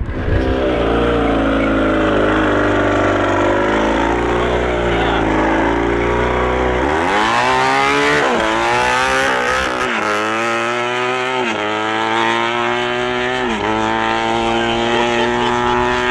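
Motorcycle engine of a mini pulling tractor running at low revs, then opening up hard about seven seconds in. The pitch climbs and drops back four or five times as it accelerates away and shifts up through the gears.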